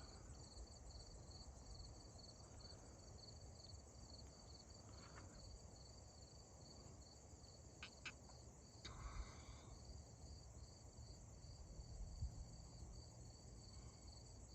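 Faint, steady insect trill, a rapid even pulsing at one high pitch, over a low rumble, with a couple of faint clicks about eight seconds in.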